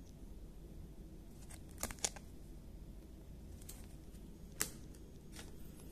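Hard plastic trading-card holder being handled, giving a few sharp clicks and taps: two close together about two seconds in and another a little past halfway, over a low steady hum.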